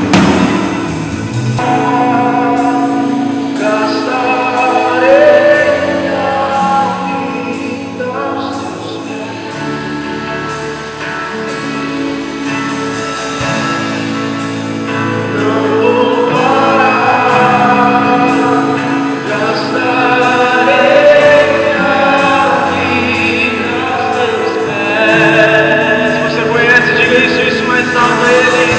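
Live praise-and-worship music: sung vocals over a band with steady instrumental chords and light percussion.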